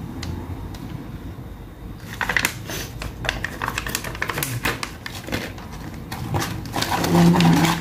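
Test-kit pouches and packaging crinkling and rustling in the hands, with small irregular clicks and taps as the pieces are handled and set on the table.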